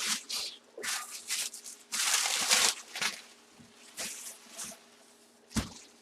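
Packaging rustling and crinkling in irregular bursts as a boxed football helmet is handled and unwrapped, the longest burst about two seconds in, with a short thump near the end.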